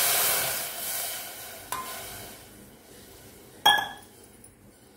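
Water poured from a metal bowl into a heated metal pot on a gas stove, a splashing hiss that fades out over the first two seconds or so. A faint clink follows, then a sharp ringing metal clink, the loudest sound, about three and a half seconds in.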